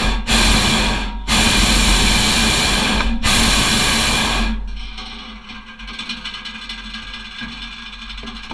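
Hot air balloon propane burner firing in a series of loud blasts with short breaks, shutting off about four and a half seconds in.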